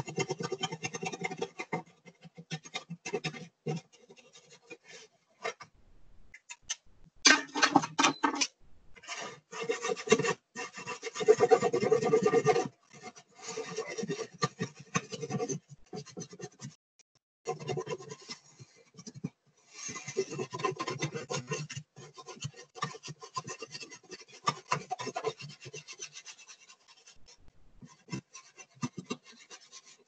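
Felt-tip marker scribbled quickly back and forth over a plastic milk jug: runs of scratchy rubbing strokes in bursts with short breaks, loudest about seven and eleven seconds in.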